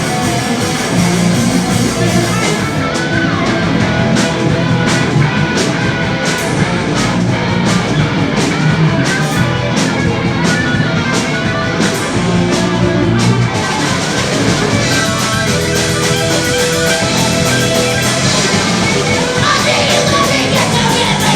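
Punk rock band playing live at full volume: guitar-driven rock with a steady drum beat and singing.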